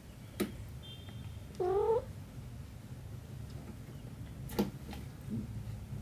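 A cat gives one short meow that rises in pitch, about a second and a half in. Two sharp taps come, one near the start and one a little past the middle.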